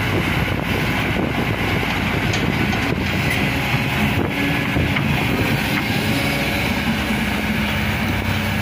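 Diesel engines of two tracked hydraulic excavators, a Kobelco SK200 and a Hitachi, running hard at close range while they work, with a few short metallic knocks.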